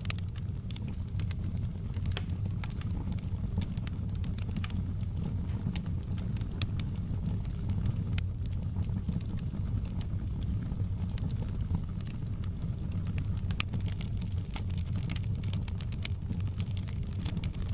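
Fire crackling: frequent scattered pops and snaps over a steady low rumble of the flames.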